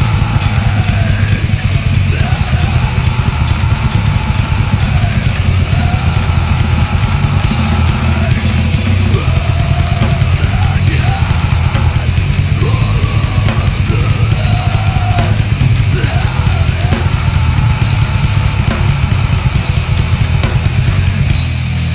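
Grindcore music played by a full band: heavy distorted low end under fast, dense drumming, steady in loudness throughout.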